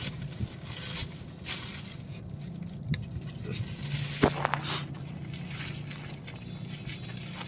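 Paper burger wrapper rustling and crinkling as it is handled and folded back, with a few sharper crackles.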